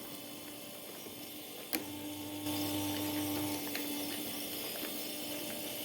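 A small electric motor starts with a click a little under two seconds in and runs with a steady whine.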